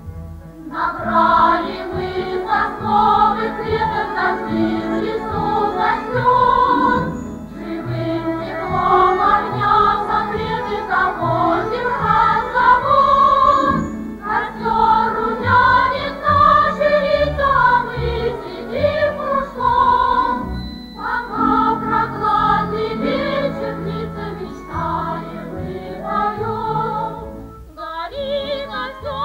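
A song: sung phrases over instrumental accompaniment, with short pauses between lines.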